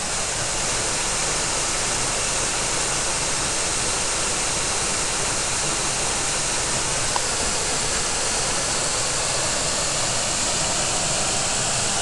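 Small waterfall spilling down rock ledges into a pool: a steady rush of falling water.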